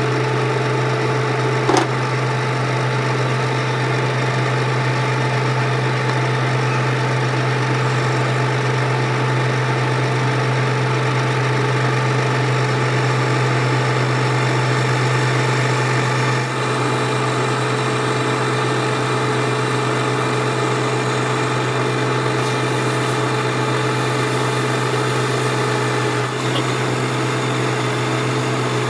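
Lathe running with a steady, loud motor hum and several constant tones, a brief click about two seconds in.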